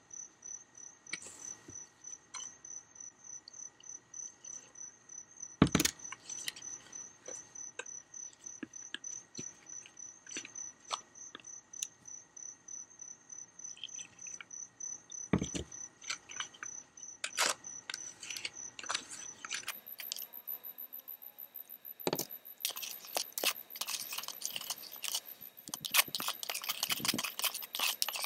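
Insects trill steadily in a fast pulsing chirp, over scattered clicks and knocks. From about 23 seconds in, a trowel scrapes and clatters in a plastic bucket, mixing powdered grout with water.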